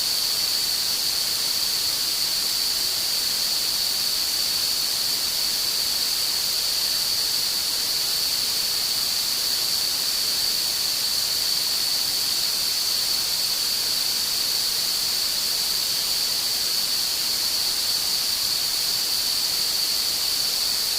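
Tinnitus relief sound: a steady high-pitched tone held over an even hiss that is strongest in the treble, unchanging throughout.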